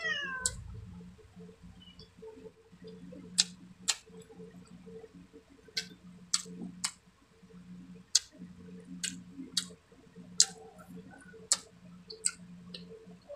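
Wet mouth clicks and lip smacks of someone chewing grilled fish and rice by hand: about a dozen sharp clicks at irregular intervals. A brief falling pitched sound comes at the very start, and a low steady hum runs underneath.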